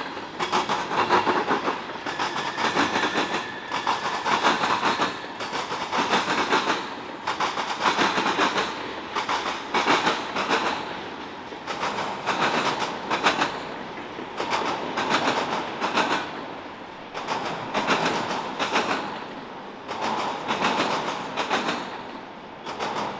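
Freight car wheels pounding over a railroad diamond crossing: clusters of clattering impacts every second or two as each set of wheels crosses.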